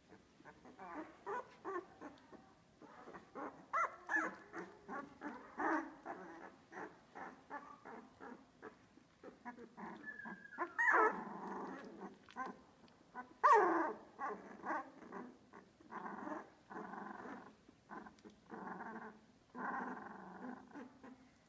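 Two-week-old Australian Labradoodle puppies making rapid short grunts, squeaks and whimpers. Two louder squeals come about halfway through.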